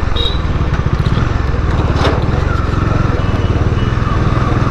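Bajaj Dominar 400's single-cylinder engine on its stock exhaust, running steadily while the bike rides along with a low, rapid pulsing beat.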